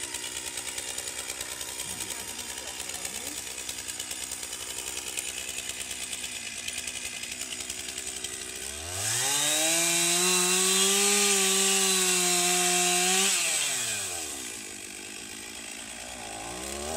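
Two-stroke chainsaw idling with a rapid pulsing. About nine seconds in it is revved up to full throttle, held there for some four seconds, then let back down to idle. It revs up again near the end.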